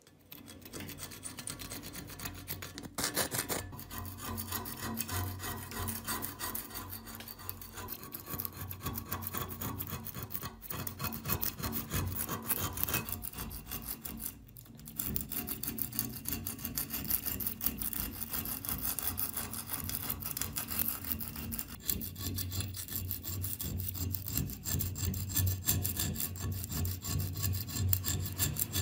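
A small metal blade scraping thick, crusted rust off an antique cleaver: a steady, gritty scratching in quick repeated strokes, with a brief pause about halfway through.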